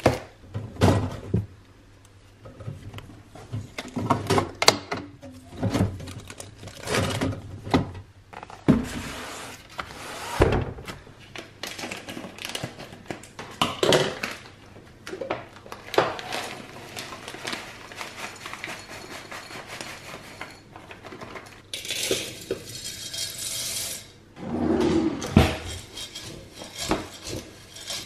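Glass jars, a glass measuring jug and plastic storage bins clinking and knocking as they are handled and set down on kitchen surfaces. About three-quarters of the way through comes a brief rushing hiss lasting about two seconds.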